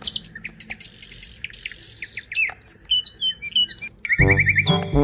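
Birds chirping and tweeting in quick, varied short calls and pitch glides. About four seconds in, music with a low brass sound starts and becomes the loudest thing.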